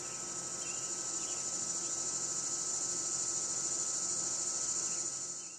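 Steady, high-pitched insect chorus, a continuous shrill trilling with no breaks.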